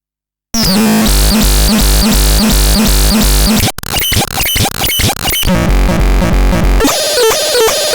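Electronic synthesizer playing a demo: after half a second of silence, a loud repeating bass pulse pattern starts. About halfway through it breaks into choppy, stuttering noisy sounds, then short notes near the end.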